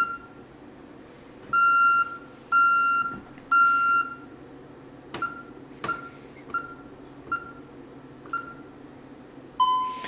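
Honeywell Vista 20P security system sounding a fire alarm after its smoke detector was tripped with test aerosol. It gives a high beep three times in a row, about half a second each, in the temporal-three fire pattern. This is followed by five shorter single beeps, each with a click, and a brief lower tone near the end.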